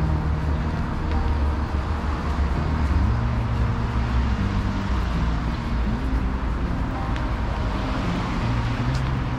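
Steady road traffic noise, a continuous low rumble of vehicles.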